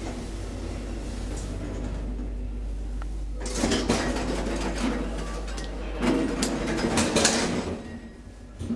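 Schindler hydraulic elevator doors sliding open and then shut: two bursts of door noise about two and a half seconds apart, over a steady low hum that cuts out near the end.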